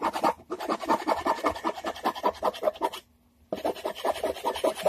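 Quick back-and-forth hand scraping strokes, several a second, of an abrasive tool against the edge of a wooden Stratocaster-style guitar body as it is rounded over. The strokes stop for about half a second around three seconds in, then carry on.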